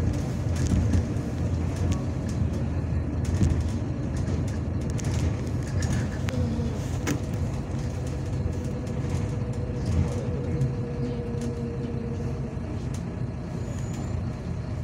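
City bus under way, heard from inside the passenger cabin: a steady low rumble of engine and running gear, with scattered small rattles and knocks and a faint whine through the middle.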